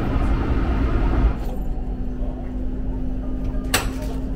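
Aircraft cabin background noise: a steady rumble that drops abruptly about a second in, leaving a quieter steady hum, with a single sharp click near the end.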